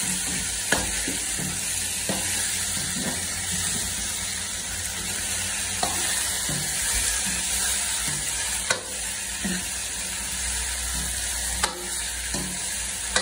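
Mutton, onions and freshly added potato pieces sizzling in a black kadai, a steady frying hiss, as a long metal spatula stirs them. A few sharp clinks come from the spatula striking the pan.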